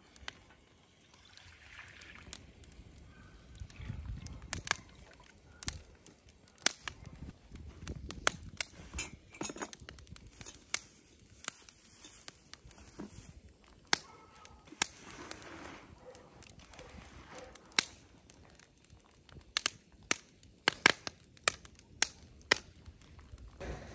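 Wood campfire crackling, with irregular sharp pops and snaps that come more thickly near the end.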